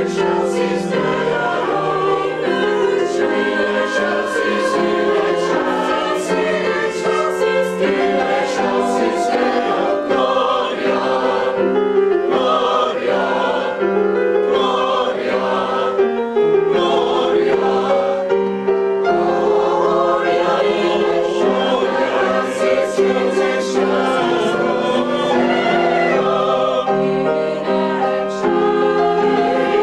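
Mixed choir of women's and men's voices singing in parts, several sustained notes sounding together and moving chord to chord.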